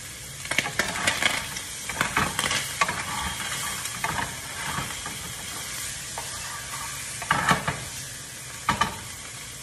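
Shrimp sizzling steadily in butter in a hot pan, with a utensil scraping and knocking against the pan now and then as the shrimp are stirred and turned. The loudest knocks come about seven and a half and nine seconds in.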